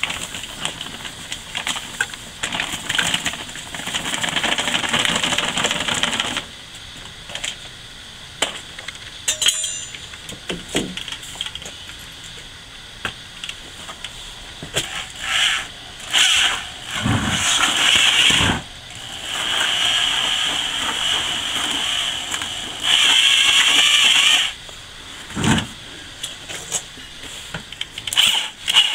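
Makita half-inch corded drill with a mixing paddle, mixing thin-set tile mortar in a plastic bucket. It runs in several bursts of a few seconds each, starting about halfway through, with a whine that rises and falls as the trigger is squeezed and let go. Before the drill starts, the dry mortar mix is poured from its bag into the bucket with a steady rustling hiss.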